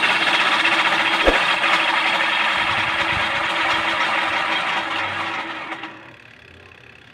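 Spin dryer of a twin-tub washing machine running on test with its newly fitted rubber bellow: the motor and spinning basket make a steady mechanical whir, with a single knock about a second in, then the noise stops about six seconds in. The repairer takes the noise it makes as probably normal for the machine.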